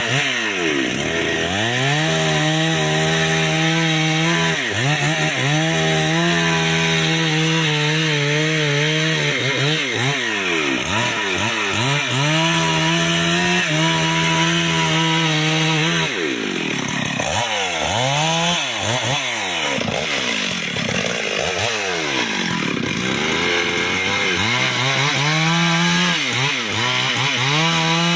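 Petrol chainsaw cutting wood at high revs, the engine note repeatedly sagging and picking back up as the chain bites into the wood and eases off. Through the middle of the stretch the revs waver more and stay lower before settling again near the end.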